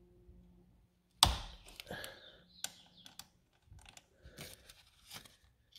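A sharp click about a second in, then a string of smaller clicks and rustles from gloved hands handling the battery terminal and cover. Under them runs a faint steady hum from the car's electrical systems, which have just come alive after the battery was reconnected.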